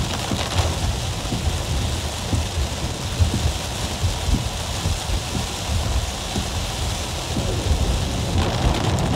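Heavy rain pelting a car's roof and windshield, heard from inside the car, with a steady low rumble underneath.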